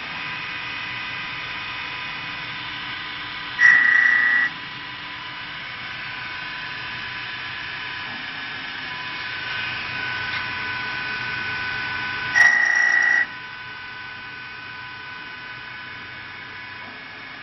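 Mini CNC wood lathe running, a steady whine of its motors over a constant hiss. Twice, about four and about twelve seconds in, a loud shrill sound lasting under a second cuts in and stops abruptly.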